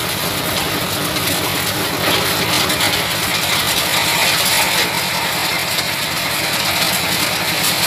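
Diesel-driven organic fertilizer grinding machine running steadily, its engine and rotating grinder making a loud, continuous mechanical rattle as compost is milled and passes out through the screen.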